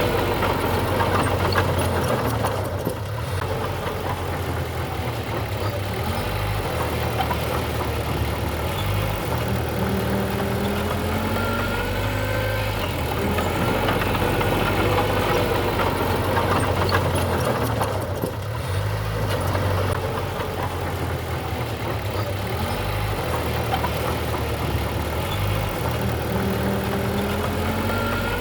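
Diesel engine of a construction machine running steadily, with a few short squeaky sliding tones above it.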